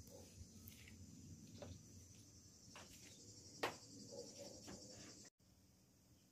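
Faint, steady high-pitched chirring of insects in the background, with a few faint short chirps and one sharp click a little past halfway. The insect sound cuts off abruptly about five seconds in.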